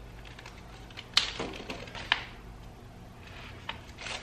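Two sharp clicks about a second apart, then a fainter one near the end, from small parts being handled while the Z-axis limit switch is fitted to the printer frame, over a low steady hum.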